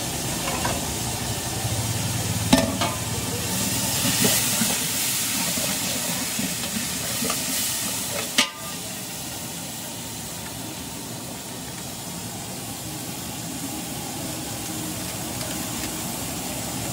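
Steady hiss of food cooking over high heat, with a sharp utensil knock about two and a half seconds in and another about eight seconds in, after which the hiss is a little quieter.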